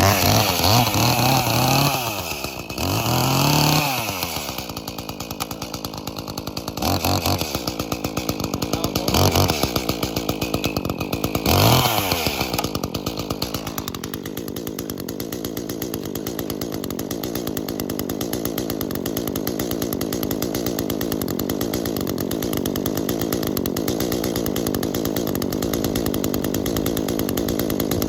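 Small homeowner two-stroke chainsaw running. It is revved up and down several times in the first dozen seconds, then from about fourteen seconds in it settles into a steady, lower running sound under load as it cuts into a log.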